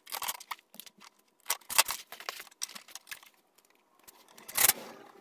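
Scattered clicks and knocks of hard plastic as a snowmobile's plastic console is worked back into place, loudest about two seconds in and again near the end.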